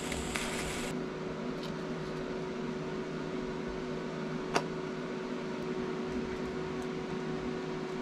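Gas torch flame hissing as it heats a steel bolt for about the first second. Then a steady hum, with one sharp click a little past halfway.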